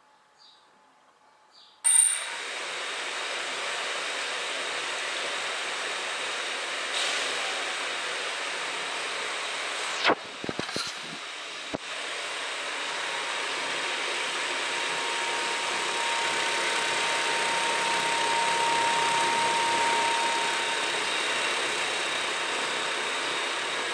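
Quadcopter's brushless motors and propellers starting up suddenly about two seconds in, then running steadily with a loud rushing whir of prop wash. A few clicks and knocks about ten seconds in.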